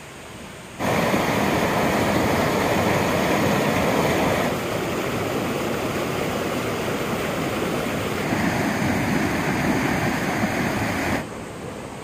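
Shallow mountain stream flowing over rocks and pebbles, a steady even rush of water. It comes in abruptly about a second in and drops back to a softer flow near the end.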